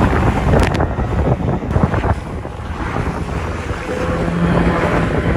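Wind buffeting the microphone over rushing water and spray from a small outboard-powered boat running fast close by, with the outboard motor running underneath.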